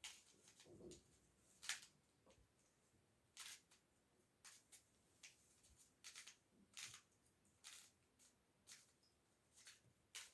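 Plastic triangle pyraminx puzzle being turned by hand, its layers clicking as they rotate, in short irregular clicks about one or two a second.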